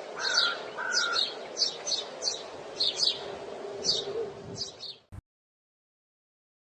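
Small birds chirping in short, high, repeated calls over a steady background hiss, a recorded sound effect; it cuts off suddenly about five seconds in, followed by silence.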